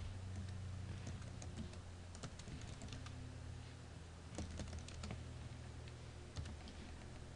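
Computer keyboard typing, with irregular keystroke clicks in short runs as a shell command is entered, over a steady low hum.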